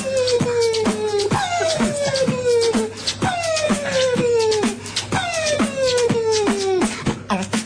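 Beatboxing: mouth-made percussion clicks and pops running steadily under a hummed vocal tone that slides down in pitch, four times in a repeating phrase.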